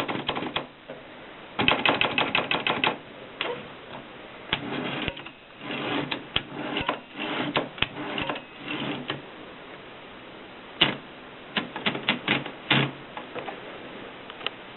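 Kolibri typewriter being typed on: keys striking in quick irregular runs of clicks with short pauses, a dense fast run about two seconds in and a lull with few strikes shortly after the middle.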